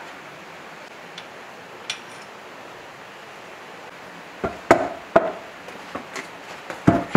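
Heavy metal clunks and knocks of a bare diesel engine block being lifted and set down on a concrete floor. Several sharp knocks come in the last three seconds, after a few seconds of faint hiss.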